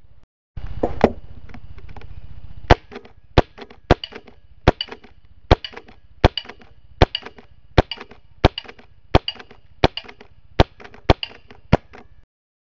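Green-gas 1911 airsoft pistol firing about fourteen single shots, one every 0.7 seconds or so, each a sharp crack followed by a few small ticks. A single loud clack comes about a second in, before the shots.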